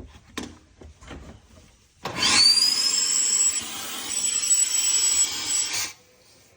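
Shop vac switched on, its motor whine rising as it spins up, running for about four seconds while sucking at a clogged dishwasher drain hose, then switched off. A few light handling clicks come before it.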